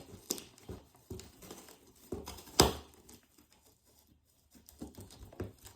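A Dutch Shepherd chewing and tearing at an object: scattered sharp clicks and crunches, with one loud snap about two and a half seconds in and a short lull around four seconds.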